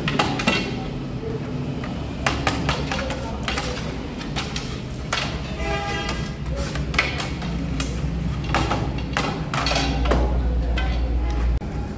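Workshop work noise: scattered sharp knocks and clatter, about half a dozen spread through, over a steady low rumble that grows louder near the end and then drops suddenly.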